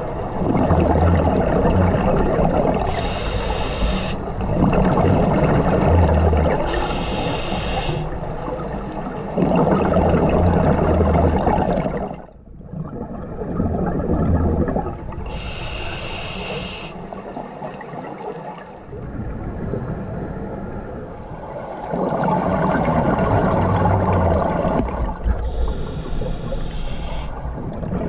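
Scuba diver breathing through a regulator underwater: slow cycles of hissing inhalations and rushing, bubbling exhalations.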